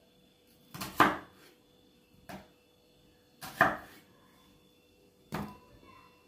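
Kitchen knife cutting through vegetables and knocking on a cutting board, four separate cuts a second or two apart, the first and third each a quick double knock.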